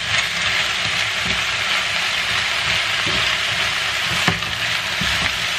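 Chicken and mixed vegetables sizzling steadily in a frying pan, stirred with a spatula that knocks against the pan a few times.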